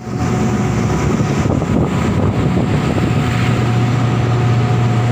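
Heavy diesel machinery running steadily: a low drone that settles onto one steady pitch about three seconds in, with thin whining tones above it and a noisy rush over the top.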